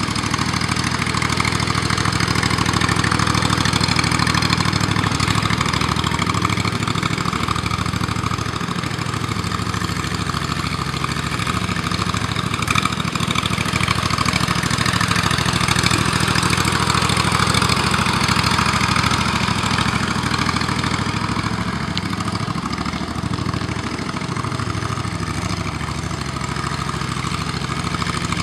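25-horsepower Briggs & Stratton engine of a remote-controlled single-axle tractor running steadily, driving the hydraulic pump that powers its wheel motors as it moves a trailer.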